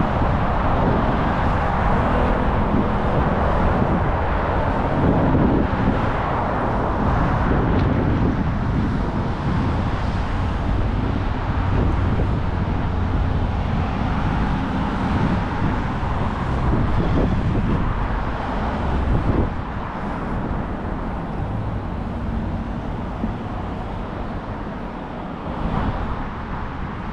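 Steady road traffic passing close by on a busy city bridge, with a low rumble of wind on the microphone. The traffic grows a little quieter after about twenty seconds.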